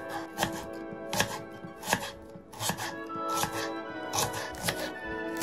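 Kitchen knife cutting an apple into pieces on a wooden cutting board, the blade knocking on the board roughly every three quarters of a second.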